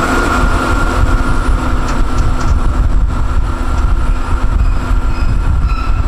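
Open-sided studio tour tram running along the road: a steady low rumble with a thin, steady high whine.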